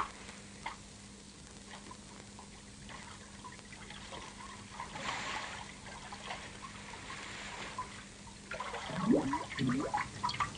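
Sea water splashing faintly around someone wading in, then louder irregular splashing and bubbling over the last two seconds as the water churns.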